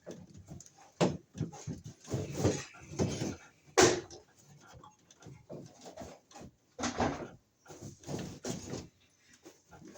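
Irregular knocks, clicks and short scrapes as a wall receptacle and its wiremold box are handled and fitted.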